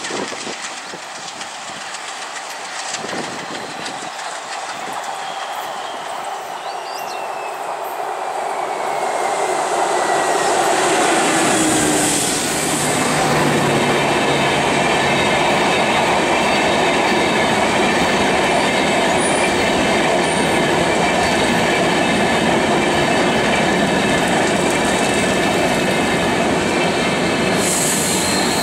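WDG3A Alco diesel locomotive, with its 16-cylinder ALCO 251 engine, approaching and running past at speed, growing louder to a peak about twelve seconds in. Its train of coaches then rolls steadily past with wheel clatter over the rail joints and high squealing from the wheels.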